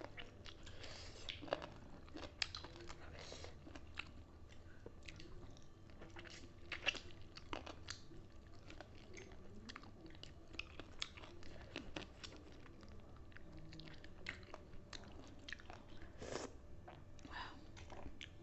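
Faint chewing and crunching of food, with many short, irregular clicks and crackles.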